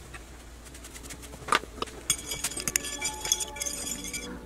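Metal fork clinking and scraping against a ceramic bowl while whisking seasoned olive oil. A few sharp taps come first, then about two seconds in a quick run of clinks with a high ringing.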